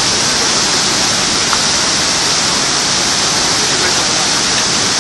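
Waterfall on a mountain creek, a steady loud rush of falling water.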